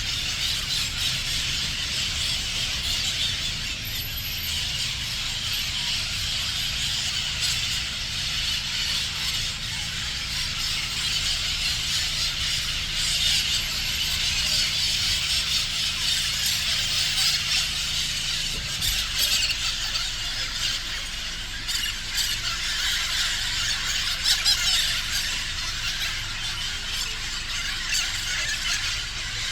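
A steady, high-pitched shrill chorus of insects. A low rumble runs underneath and changes about two-thirds of the way through.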